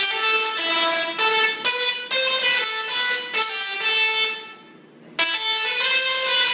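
Musical Tesla coil playing a tune: its sparks give a harsh, buzzy electric tone, with the notes changing about twice a second. The tune breaks off for about half a second some four and a half seconds in, then starts again.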